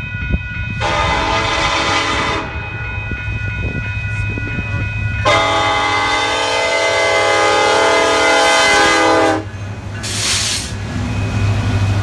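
Train air horn sounding two blasts, a short one of about a second and a half, then a long one of about four seconds, over the steady low rumble of the train. A brief hiss comes near the end.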